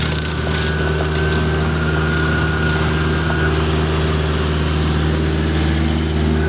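Kubota KX121 excavator's diesel engine running steadily while driving the hydraulic Cyclone 48-inch rotary mower, with a high whine that fades out about halfway through.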